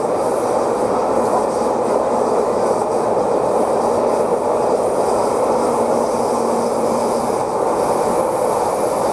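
Steady running noise of a moving railway passenger coach heard from inside, the wheels rolling on the rails in an even, unbroken din.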